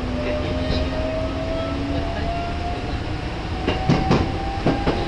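Electric commuter train running, with a whine from the drive that rises slowly in pitch as it gathers speed. From a little before the end the wheels start knocking over rail joints or points in a quick irregular clatter.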